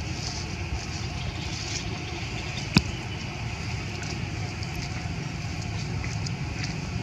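Steady outdoor background noise, a low rumble under a high hiss, with one sharp click nearly three seconds in.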